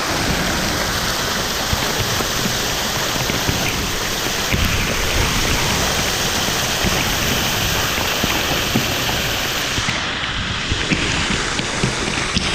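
Waterfall rushing, a steady loud roar of falling water. About ten seconds in the sound changes, losing its high hiss, with scattered small clicks.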